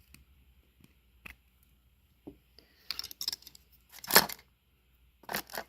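Small hard-plastic clicks, taps and short rattles from handling a bikini trimmer and its snap-on guide combs: a few faint single ticks at first, then denser clusters in the second half, loudest a little past the middle.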